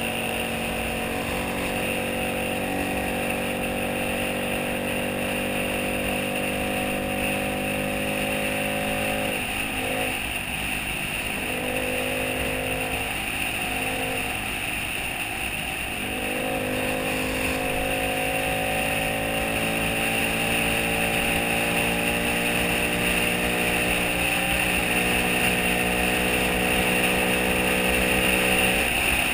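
Small motorcycle engine running under way, with a steady hiss of wind and road noise: its pitch climbs slowly, drops and wavers for several seconds about a third of the way in as the bike eases off, then climbs steadily again.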